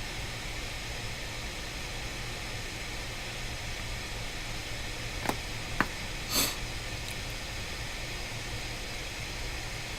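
Steady background hiss with a low hum, broken by two small clicks a little past five seconds and a short burst of hiss about a second later.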